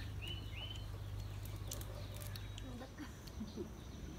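Quiet yard background over a steady low hum: a bird's two short high chirps near the start, then a few soft low clucks from chickens about three seconds in, with scattered faint clicks.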